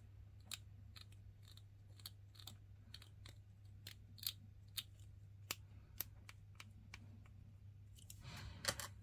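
Craft knife blade scraping and shaving a small plastic miniature part to clean it up: faint, irregular little scrapes and ticks, a few a second, over a steady low hum. Near the end a louder rustle of handling as the knife comes away.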